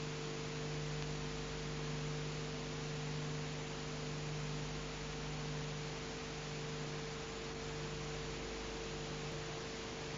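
Steady electrical hum, a few low tones held unchanged, over an even hiss: the background noise of an old recording's sound track.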